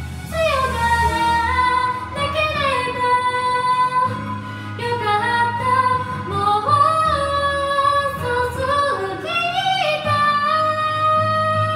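A woman singing a slow Japanese Vocaloid song into a karaoke microphone over the song's backing track, holding long, gliding notes.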